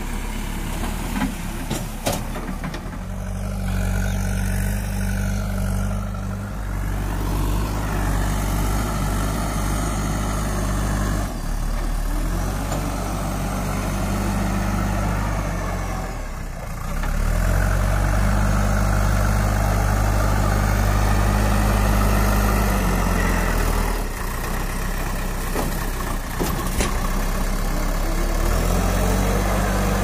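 JCB 3DX backhoe loader's diesel engine running, its speed stepping up for stretches of a few seconds about five times and dropping back between, as the engine takes up the load of the driving and the loader's hydraulics.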